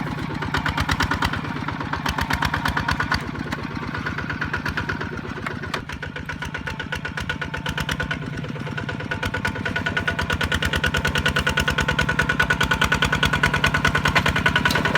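Kubota RT155 single-cylinder diesel engine of a farm truck chugging with rapid, even firing pulses. It gets louder over the last few seconds.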